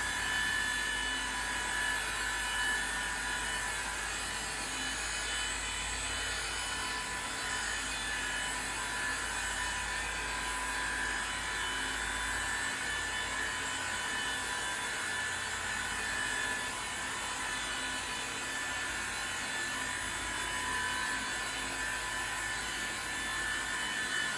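FLEX electric polisher running steadily with a foam pad on a stainless steel body panel, giving an even, high-pitched whine.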